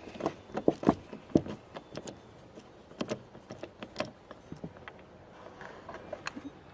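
Irregular light metallic clicks and taps of a T20 Torx bit working a screw out of a car's plastic door panel. The clicks are busiest in the first couple of seconds and sparser after.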